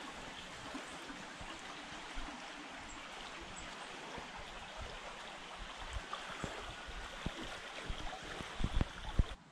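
A small stream running steadily with an even rush of water. A few low thumps come near the end.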